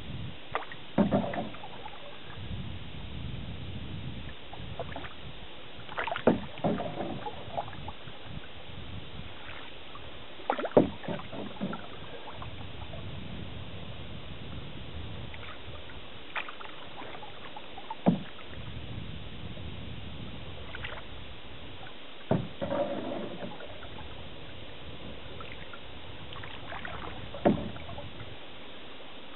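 Canoe paddle strokes: a splash and knock of the paddle in the water about every four to five seconds, over a steady low hiss.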